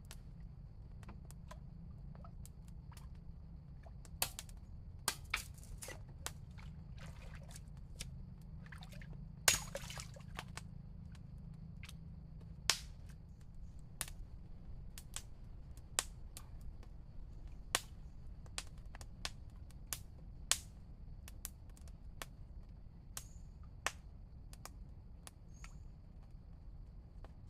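Irregular sharp clicks and snaps, one or two a second, the loudest about ten seconds in, over a low steady rumble.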